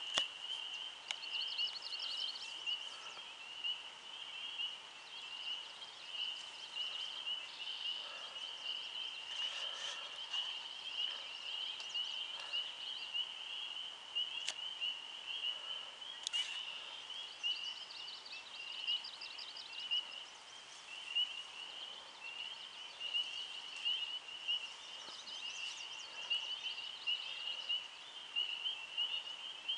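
A dense chorus of frogs making a continuous, high-pitched shrilling that pulses at one pitch, with a few faster, higher trills over it now and then.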